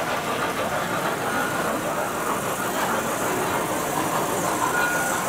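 Standard gauge tinplate toy trains running on their metal track: a steady rumbling whir of motors and wheels.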